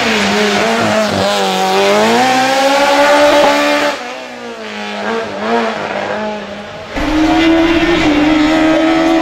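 Race car engines at full throttle: one car's engine note climbs as it accelerates hard for about four seconds, then drops to a quieter, wavering note. About seven seconds in a second car's engine cuts in loud and steady at high revs.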